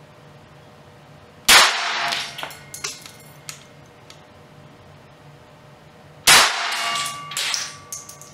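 Two shots from the homemade Krikit 25 .25 ACP self-loading pistol, about a second and a half in and again nearly five seconds later. After each shot comes a short run of metallic clinks as the ejected brass case lands and bounces on the concrete floor, a sign that the pistol is firing and ejecting properly.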